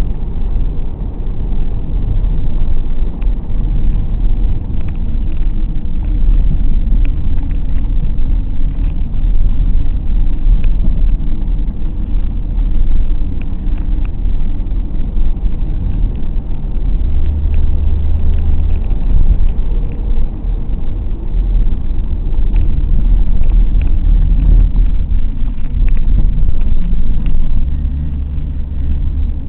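Car engine and road rumble heard inside the cabin while driving: a steady low drone, with a deeper engine note swelling briefly a little past halfway and again near the end.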